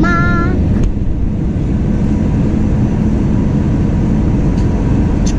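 Jet airliner cabin noise on low final approach: a steady, loud rumble of the jet engines and airflow past the fuselage, heard from a window seat over the wing.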